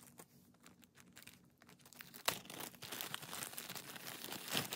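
Plastic packaging crinkling: a zip-top plastic bag and the bubble-wrap pouch inside it are handled and opened. There are light rustles and ticks at first, then loud, dense crinkling that starts sharply about two seconds in.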